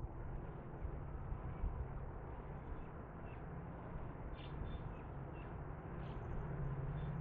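Distant low drone of a WDP4D diesel locomotive's two-stroke engine as the train approaches, growing louder toward the end, with birds chirping now and then.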